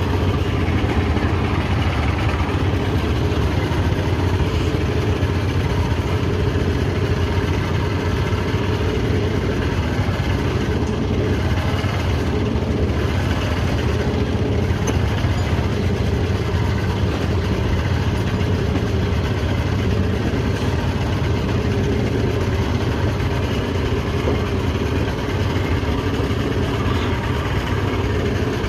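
Yamaha V200 two-stroke V6 outboard running at a steady idle with its cowling off.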